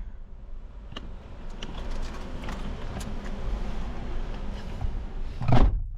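Car cabin with a steady low rumble and scattered small clicks and rustles, then a car door shuts with a loud thud near the end.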